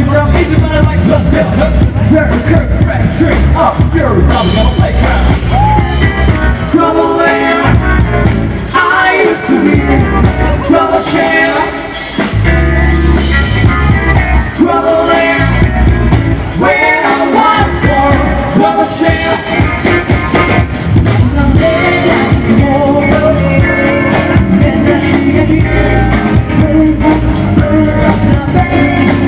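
Music with a sung vocal and a steady low beat.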